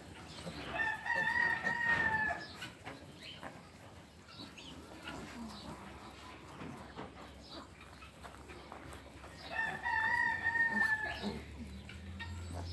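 Rooster crowing twice, each crow a drawn-out call of under two seconds, the second about nine seconds after the first.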